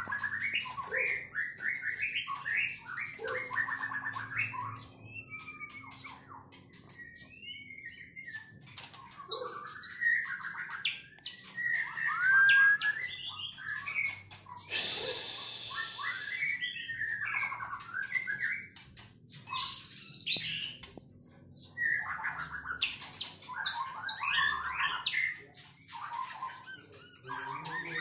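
White-rumped shama (murai batu) singing a varied song of short whistles, chirps and rattles. About fifteen seconds in, there is a loud burst of noise lasting about a second.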